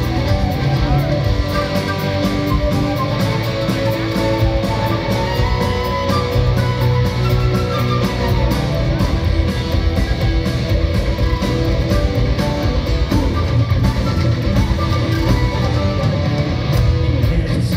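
Live rock band playing an instrumental passage: flute lead over electric guitar and drums with a steady beat, heard from the audience in a concert hall.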